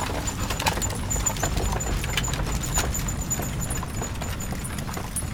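Mule teams' hooves clopping on the asphalt as covered wagons roll past, with irregular knocks and rattles over a steady low rumble of wheels on the road.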